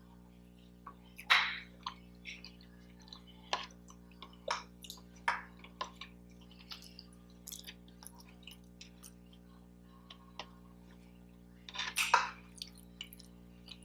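Close-miked eating sounds: scattered wet mouth clicks and smacks while chewing, with a short noisier burst near the end.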